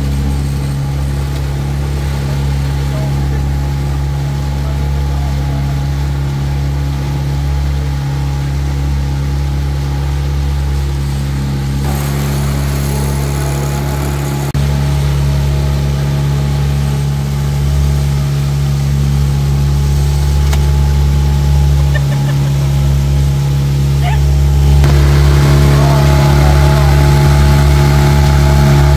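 Motorboat engine running steadily, a low, even hum. It gets louder about halfway, and louder again near the end, where a rushing hiss joins in.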